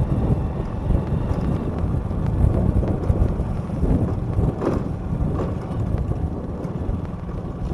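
Wind rumbling on the microphone while riding a motorbike, over the noise of the moving bike and the road.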